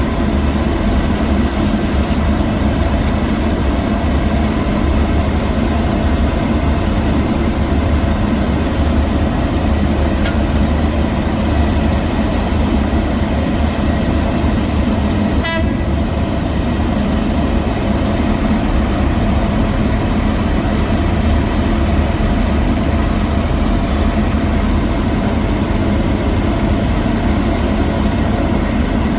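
Heavy road-construction machinery running, a loud steady low engine drone, with a single sharp clank about halfway through and a faint high whine in the second half.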